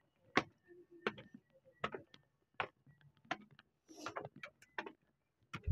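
Footsteps climbing steep stone steps: about eight evenly paced, short scuffing steps, roughly one every three quarters of a second.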